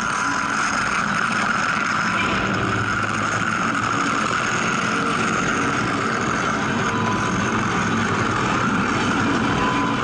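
Railway locomotive turntable turning under power, its drive and running gear making a steady mechanical drone with a thin whine on top.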